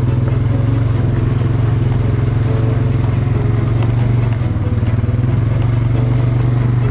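ATV engine running steadily under way, a loud, even low drone that hardly changes.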